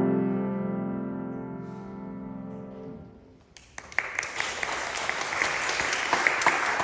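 Grand piano's final chord, struck just before and left ringing, fading for about three seconds until it is released. About three and a half seconds in, audience applause breaks out and goes on.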